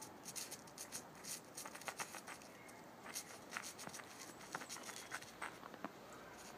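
Shiba Inu puppy's paws digging and scraping at snow: a quiet, irregular run of short crunching scratches.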